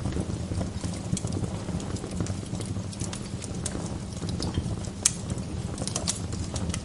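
Wood fire crackling in a fireplace: irregular snaps and pops over a low, steady rumble, with one sharper pop about five seconds in.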